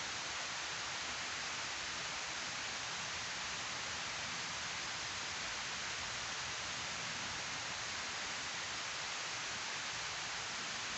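Water pouring down a sloping concrete weir spillway into the pool below: a steady, unbroken rush with no change in level.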